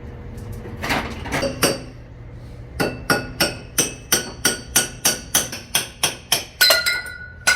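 Hammer blows on a steel driveline tube, a few at first and then a steady run of about three a second, each leaving the tube ringing.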